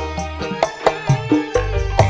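Dangdut koplo band playing live: kendang drum strokes, keyboards and electric guitar over a steady bass beat, about four strokes a second.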